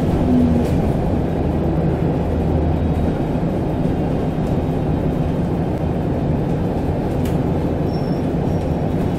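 Cabin of an Alexander Dennis Enviro200 MMC single-deck bus under way: steady low engine and road rumble.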